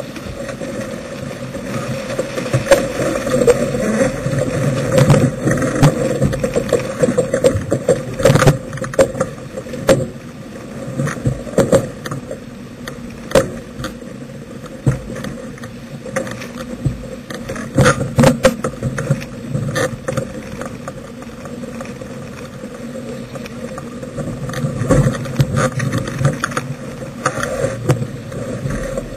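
Wind and rushing water around a sailboat under sail, with irregular knocks and rattles of deck gear as the crew handle it.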